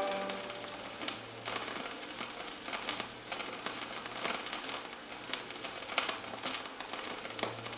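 Faint surface noise of a vinyl record between tracks: a soft hiss with scattered crackles and clicks and a faint steady hum, as the last note of the previous song dies away at the very start.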